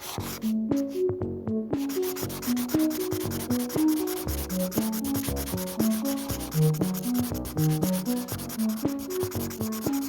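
Black pencil scratching and rubbing steadily on paper while sketching and shading. Underneath is background music: a simple melody of short notes.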